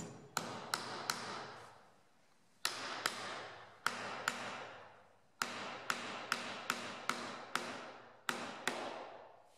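A hammer driving a wire nail into a narrow pine strip: about sixteen sharp, ringing strikes in three bursts. The nail sits close to the end of the strip, which splits at the nail as it goes in flush.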